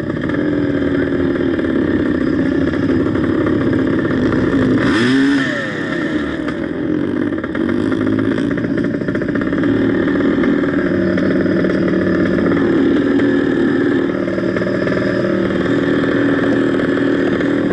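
Yamaha DT 180 two-stroke single-cylinder motorcycle engine running hard at high revs. About five seconds in the sound dips briefly and the revs climb again, then it holds steady.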